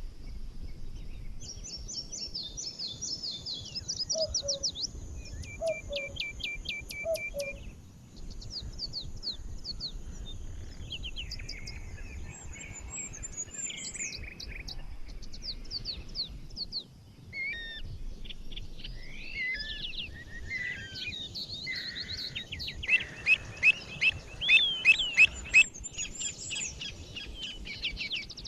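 Several songbirds singing and chirping over one another in a software-made daytime forest soundscape: quick falling whistles, a fast trill, and a lower call repeated three times. A steady low background hiss runs underneath. A burst of louder, sharper chirps comes about 23 seconds in.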